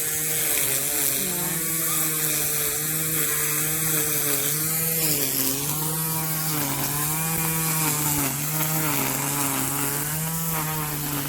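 Petrol lawn mower engine running steadily while cutting grass, its pitch dipping slightly and recovering under changing load.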